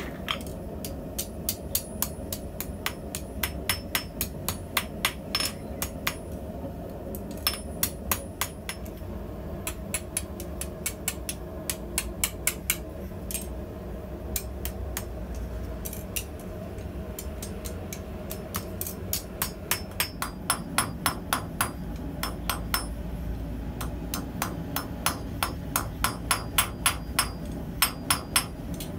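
Hammer blows on a red-hot steel rod on an anvil, struck in runs of about two to three a second with short pauses between them, each blow with a bright metallic ring, over a steady low rumble.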